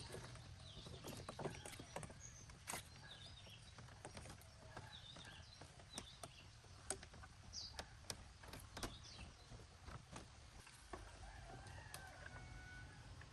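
Faint bird chirps and clucks, with scattered light clicks and knocks.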